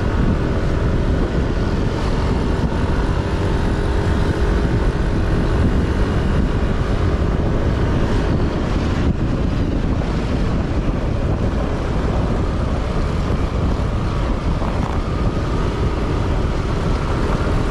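A vehicle being driven: steady engine and road noise with a heavy low rumble throughout.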